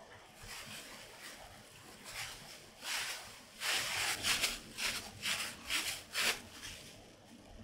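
Thin disposable plastic gloves crinkling and rustling as hands squeeze cooked rice into a firm ball. A soft rustle turns, in the second half, into a run of about six crackly squeezes at roughly two a second.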